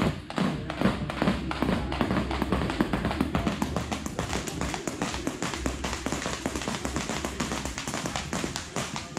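Several jump ropes skipping on gym floor mats: rapid, overlapping taps from the ropes slapping the mats and bare feet landing, with music playing underneath.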